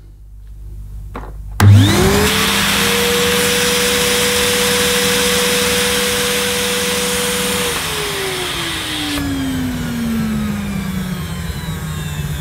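Early-1990s Hitachi CV-790 Powerhouse bagless vacuum cleaner's fixed single-speed motor switched on with a click about a second and a half in, running up to speed within a second and holding a steady whine, hose sealed on a suction gauge, with air hissing in through what the owner takes for a suction relief vent. About six seconds later it is switched off and winds down slowly with a falling whine.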